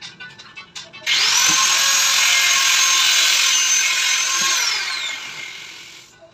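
Electric drill motor run free: it spins up sharply about a second in, holds a steady high whine for about three and a half seconds, then winds down and fades.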